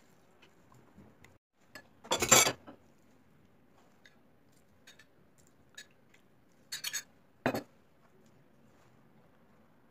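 Metal potato masher clinking and knocking against a plate while boiled potatoes are mashed: a quick run of clinks about two seconds in, a few more around seven seconds, and faint small taps between.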